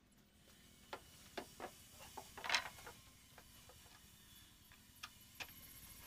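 Light, scattered wooden knocks and taps as long hardwood rails are handled and set against a carved bed frame, the loudest about two and a half seconds in.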